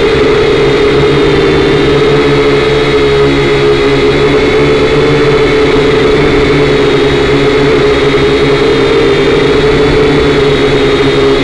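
Syma X5C quadcopter's four small brushed motors and propellers whining steadily in flight, picked up loud and close by the drone's own onboard camera. The pitch wavers slightly as the motors adjust thrust.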